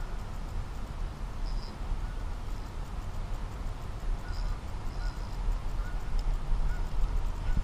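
Lakeside ambience: a steady low rumble of wind on the microphone, with a few short, scattered bird calls, likely including ducks on the water.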